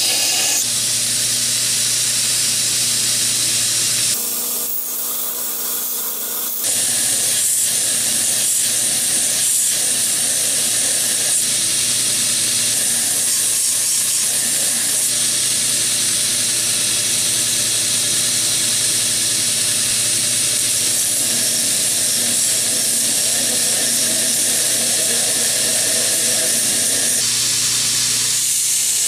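Belt grinder running, with the steel of an old file pressed against the moving abrasive belt: a steady grinding hiss over the motor's hum. The sound drops and changes for a couple of seconds about four seconds in, then carries on steadily.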